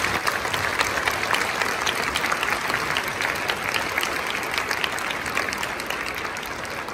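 Audience applauding: dense clapping that starts all at once and begins to die down near the end.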